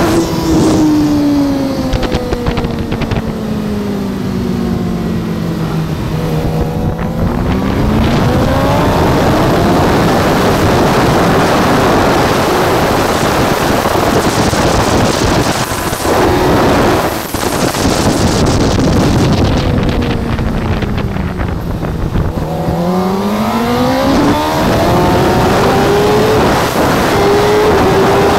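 Racing motorcycle heard from onboard, the engine note almost drowned at times by heavy wind roar. The note falls steadily, climbs again, falls a second time, and near the end rises in steps through the upshifts.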